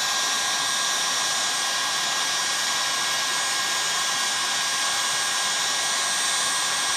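Heat gun blowing steadily, a continuous rush of air with a thin steady whine. It is heating an aluminium chainsaw crankcase around its main bearing seat to expand it for the bearing.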